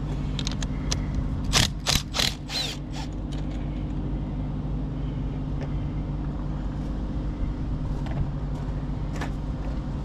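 A steady low mechanical hum, like an engine running, with a cluster of sharp clicks and clacks about one and a half to three seconds in as tools are handled near the car's battery.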